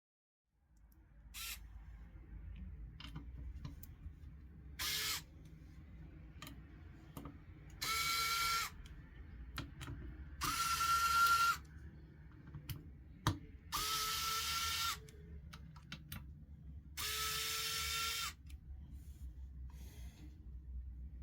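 Small cordless electric screwdriver running in about six short bursts, each spinning up, holding a steady whine for about a second, then winding down, with small clicks between the bursts: backing out the graphics card's screws.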